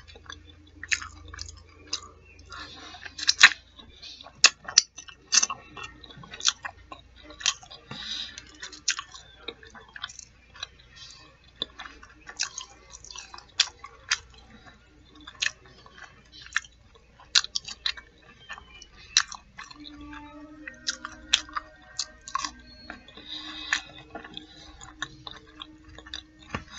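A person chewing crisp fried fish nuggets and fries close to the microphone: a steady run of sharp mouth clicks, smacks and crunches.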